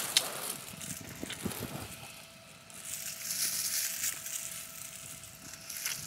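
Eating sounds: biting and chewing meat off a grilled lamb rib, with short crackles and the crinkling rustle of a plastic glove, loudest in the middle of the stretch.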